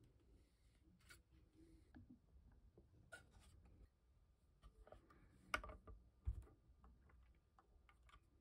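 Near silence with faint clicks and taps of 3D-printed plastic and metal parts and small tools being handled, two sharper clicks a little over halfway through.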